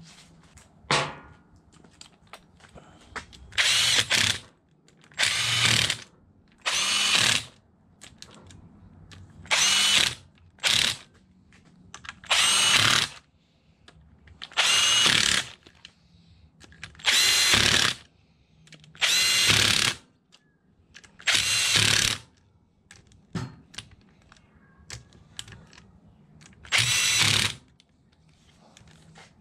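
A cordless impact driver is run in about a dozen short bursts, each under a second or so, spinning in the bolts of a Yamaha YFZ450R engine's side case cover one after another.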